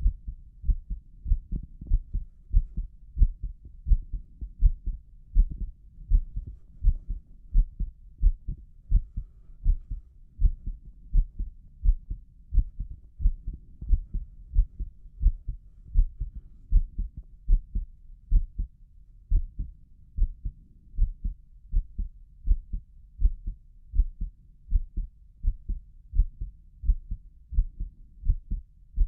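Human heart heard through a stethoscope on the chest, beating fast and regularly in lub-dub pairs of short, low thumps. The rate is raised: the heart is excited.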